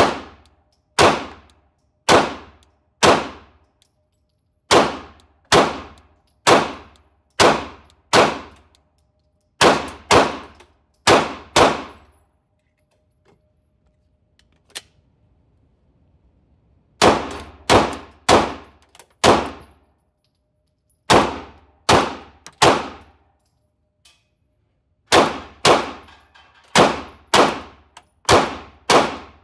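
Gunshots from a 9mm Glock 17 Gen 5 pistol in an indoor range, fired in strings of shots about a second apart, each with a short ringing tail; there is a break of about five seconds partway through.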